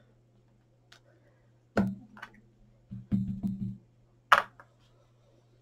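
Knocks and taps of a clear acrylic stamp block and a plastic ink pad on the craft desk: one knock near two seconds in, a quick run of about four taps around three seconds in, and a sharp, loud clack just after four seconds.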